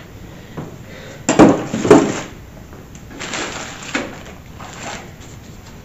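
Unboxing packaging being handled: two sharp knocks about a second and a half and two seconds in, then softer rustling as plastic-bagged cables are moved about.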